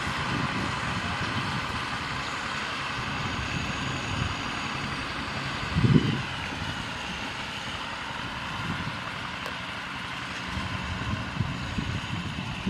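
Diesel engines of two Kubota M6040SU tractors running steadily under load as they push soil with front blades, with a brief low thump about halfway through.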